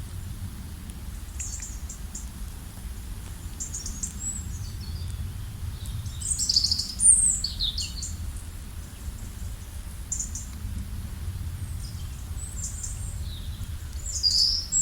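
Songbirds chirping in scattered short, high-pitched calls and brief falling phrases, a busier cluster about halfway through and again near the end, over a steady low rumble.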